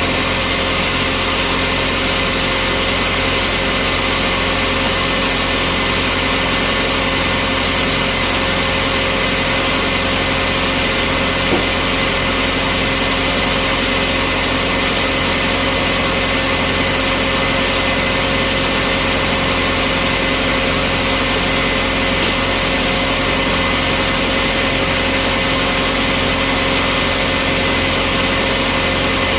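Sawmill machinery running steadily: an engine hum with constant tones and no change in load, and one small click near the middle.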